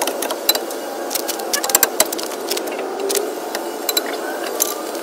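Scattered light metallic clicks and knocks as a steel winch plate and its bolts are handled and worked into place in a Jeep's front bumper. The clicks bunch together a little under two seconds in, over a steady background hum.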